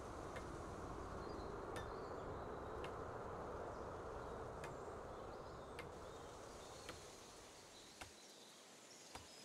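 Faint, steady outdoor-style background noise with a few soft clicks, fading slightly near the end.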